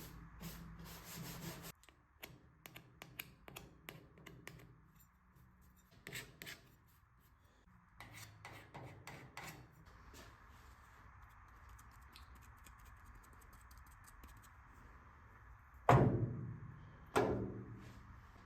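Hand rubbing and scraping on a cabinet's surface while it is being distressed, with scattered small clicks, then two loud knocks near the end, about a second apart.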